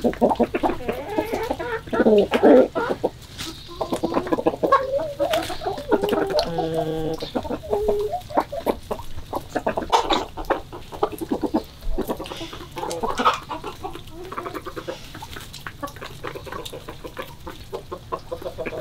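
A flock of chickens, hens and roosters, clucking and calling over one another while feeding, with many short sharp ticks all through.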